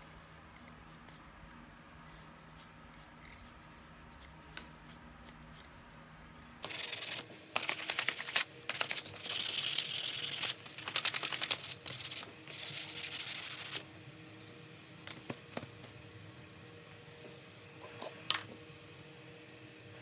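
Wooden cleaver handle being hand-sanded with folded sandpaper: a run of quick rasping strokes starting about a third of the way in and lasting about seven seconds. A single sharp click comes near the end.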